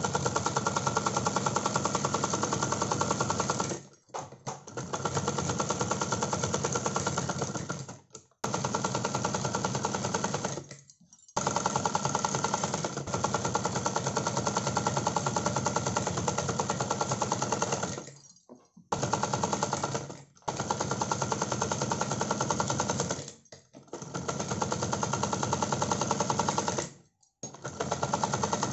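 USHA sewing machine stitching at a fast, even rate while sewing a second line of stitching along a kurta neckline. It runs in stretches of a few seconds, stopping briefly about seven times as the fabric is repositioned.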